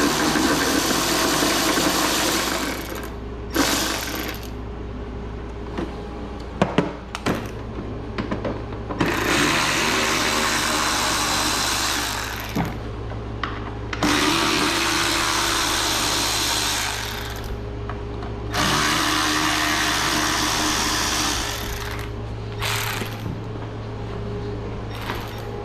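Power drill/driver running in four runs of about three seconds each, backing out the bolts that hold a riding mower's shroud and fender on, with a few sharp metal knocks between the runs.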